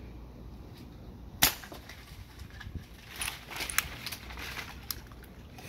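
A single sharp shot from a PCP air rifle about a second and a half in. A run of faint crackling and rustling in the tree's leaves follows, from about three to five seconds in.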